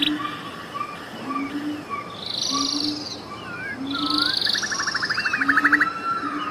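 Animal chorus of frogs and birds: a low frog call repeating about every three-quarters of a second under rapid pulsed trills and short gliding bird whistles and chirps.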